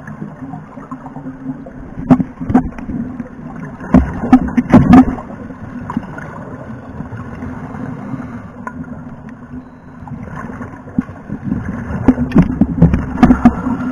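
Underwater sound around scuba divers: a steady low hum with loud bursts of bubbling and crackle, about two seconds in, around four to five seconds, and again near the end, typical of divers' exhaled air bubbles from their regulators.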